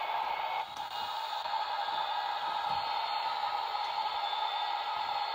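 Toy airplane sound book playing its recorded airplane engine sound effect through a small built-in speaker: a steady rushing, hiss-like noise.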